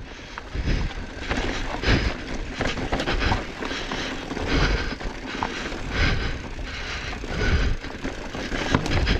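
2020 Specialized Enduro Comp mountain bike rolling fast down a dirt trail: tyres crunching over dirt and leaf litter and the bike rattling, with irregular dull thumps over bumps about once a second.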